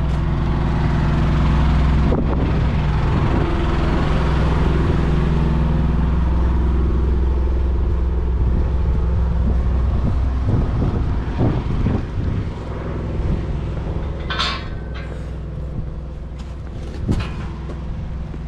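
A large engine running steadily with a low hum, which drops away about ten seconds in. A few sharp knocks and clatter follow near the end.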